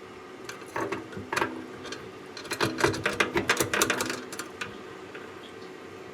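A few sharp clicks, then a quick run of rapid metallic clicking and rattling from small faucet parts being handled and fitted, over a steady faint hum.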